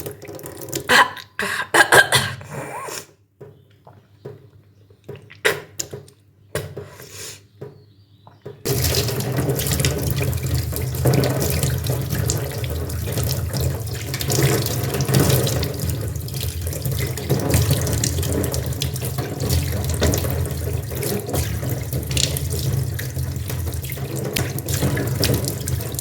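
A few short, irregular sounds, then about nine seconds in a water tap is turned on and runs steadily into a sink.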